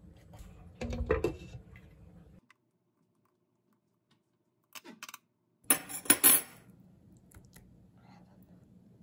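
Kitchen handling sounds at a frying pan. There is a clattering knock about a second in, a few light clicks near the middle, and a louder burst of clinks and rattles at about six seconds, followed by faint handling noise.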